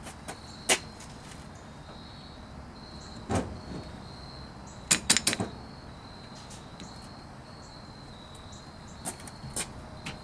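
Posi-Lok shift fork and rod clicking and clacking in their metal housing as the actuator cable is pulled and pushed to test the fork's travel: a sharp click about a second in, a knock a few seconds later, a quick run of clicks about five seconds in, and lighter clicks near the end. A faint, high insect chirping pulses steadily behind it.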